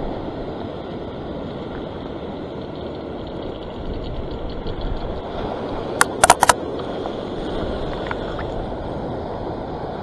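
Surf washing over a rock ledge, with wind on the microphone. About six seconds in comes a quick run of four sharp clicks.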